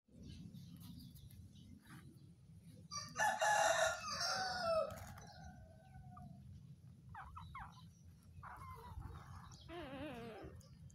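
A rooster crowing once, loud, starting about three seconds in, its last drawn-out note falling in pitch. Fainter short calls follow near the end, over a steady low background noise.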